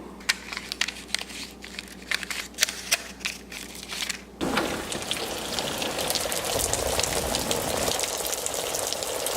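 Scattered light clicks and crackles for about four seconds, then an abrupt switch to a steady crackling hiss that runs on.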